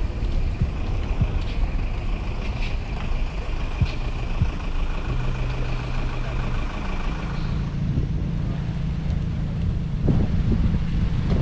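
Motor vehicle running on the road, a steady low rumble with an engine hum whose pitch shifts about two-thirds of the way through.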